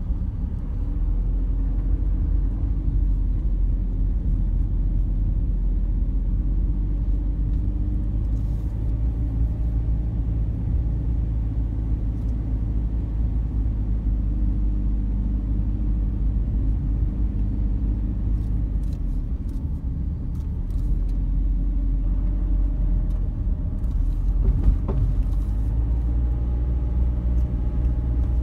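A car driving along a forest road: steady low engine and road rumble, easing briefly about two-thirds of the way through, with a few light ticks.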